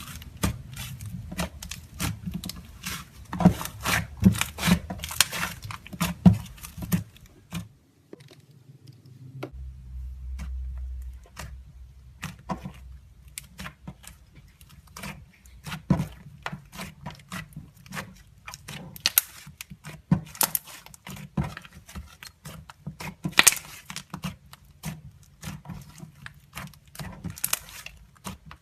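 Butter slime being squished and poked by hand, making irregular sticky clicks and pops, with a brief lull about eight seconds in.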